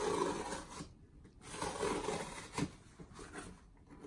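Cardboard mailer box's packing tape being cut open with a blade: two scratchy scraping strokes, each under a second, and a sharp click about two and a half seconds in.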